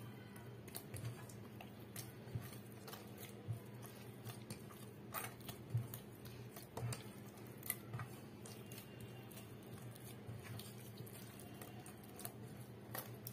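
Soft, oily bread dough being kneaded by hand in a pot: irregular wet squelches and slaps with the odd click against the pot, over a faint steady low hum.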